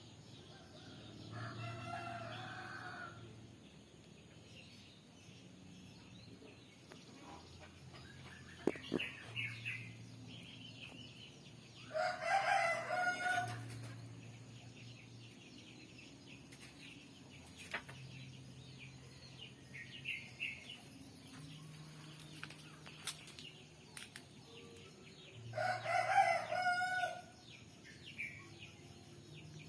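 A rooster crowing three times, about twelve seconds apart, each crow lasting under two seconds, with fainter short calls in between.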